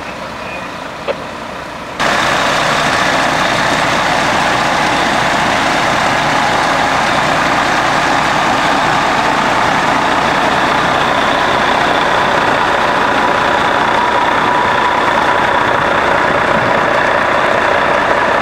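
Fire engine's engine running loud and steady, with a faint steady whine, starting abruptly about two seconds in.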